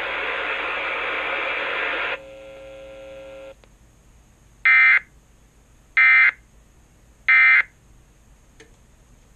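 A steady hiss cuts off about two seconds in, followed by a short, quieter buzzing hum. Then come three short bursts of digital data tones about a second apart: the Emergency Alert System end-of-message (NNNN) signal sent by a Sage EAS ENDEC.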